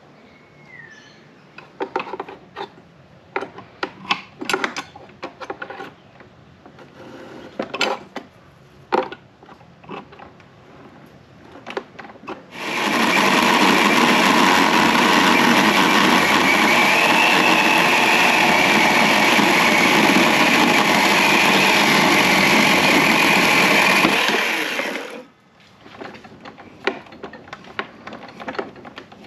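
Knocks and clatter of handling, then a chainsaw runs steadily while cutting through the end of a log for about twelve seconds, stopping fairly sharply. More knocks and clicks follow.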